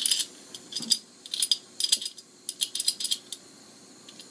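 Flint spark striker scraped again and again at the nozzle of a butane torch, about two sharp metallic rasps a second, throwing sparks without the torch catching.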